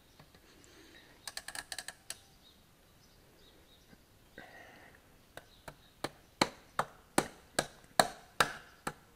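A quick run of ratchet-like clicks as the piston ring compressor is tightened on a John Deere 530 piston. Then a hammer taps the piston about ten times, about two and a half a second and getting harder, to drive it through the ring compressor into the cylinder bore.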